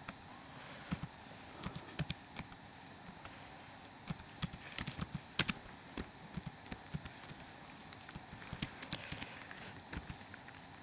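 Computer keyboard being typed on: irregular key clicks in short runs, busiest in the middle and again near the end.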